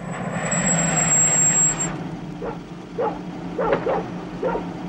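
A car pulling up and stopping, a rush of engine and tyre noise with a high steady whine for the first two seconds. Then a dog barks several times in short yaps.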